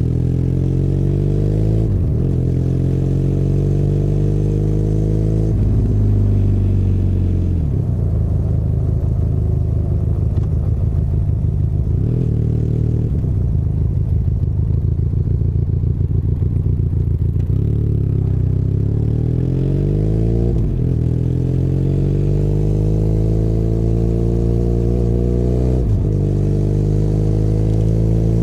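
Benelli Leoncino 500 Trail's parallel-twin engine running under way, its pitch climbing and then dropping sharply again and again as the rider shifts gears, with a steadier stretch near the middle.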